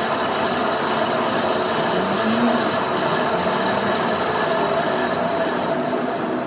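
Metal lathe running, a steady mechanical noise with a constant hum through it.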